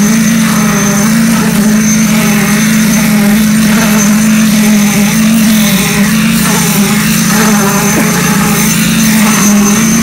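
Petrol-engine concrete needle vibrator running steadily at constant speed, its poker working in freshly poured slab concrete: a loud, even engine drone with no change in pitch.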